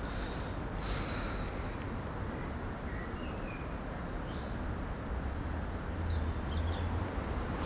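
Outdoor ambience by a pond: a steady low background rumble, with a few faint bird chirps about three and six seconds in.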